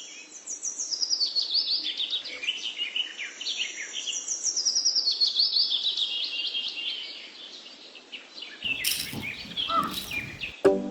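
Bird song: two long phrases of quick, high chirps, each stepping down in pitch. Near the end comes a brief burst of clicks and scratchy noise.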